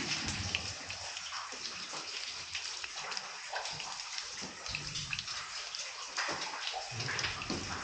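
Water trickling and dripping steadily, with many small drips and a few soft low thuds.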